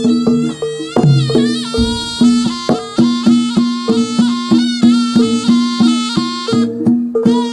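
Live Javanese jaranan gamelan music: a reedy slompret shawm plays a bending, ornamented melody over a steady beat of gongs, metal gong-chimes and drums.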